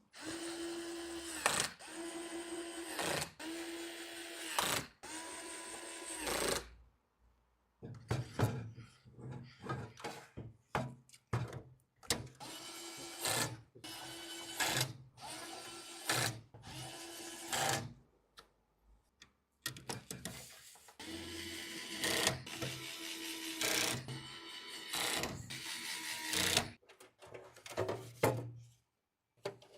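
Small electric screwdriver running in repeated bursts, driving screws during a PC assembly. It runs at a steady pitch: four longer runs first, then shorter stop-start bursts, then longer runs again after about 20 seconds.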